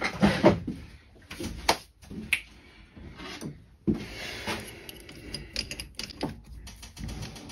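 Irregular clicks, knocks and scrapes of hard objects being handled, with a sharp thump about four seconds in.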